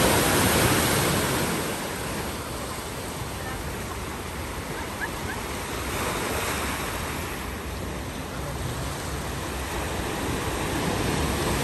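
Sea surf breaking and washing over a bank of shoreline rocks: a steady rush that is loudest at first, eases after about two seconds and swells again near the end.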